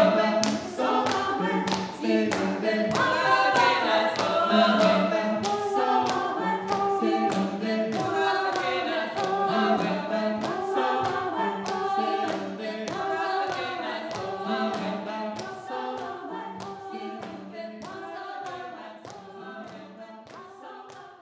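A group of voices singing an improvised a cappella circlesong, layered repeating vocal parts over a steady beat of handclaps. It fades out over the last several seconds.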